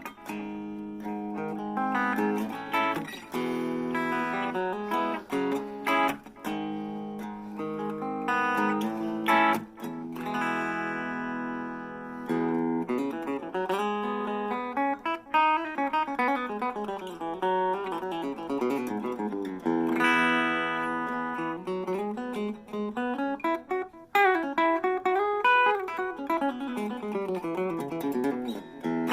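Harley Benton CST24-HB electric guitar played through a Blackstar Fly 3 mini amp: ringing chords at first, then, from about twelve seconds in, runs of notes climbing and falling in pitch.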